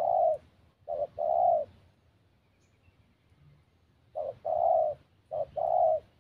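Spotted dove cooing in paired phrases, a short note followed by a longer, low coo. Three such phrases, with a pause of about two seconds after the first.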